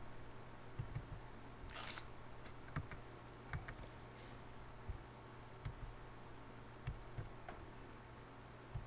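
Computer mouse and keyboard clicks: about nine sharp, isolated clicks, roughly one a second, with two short rustling hisses, over a faint low hum.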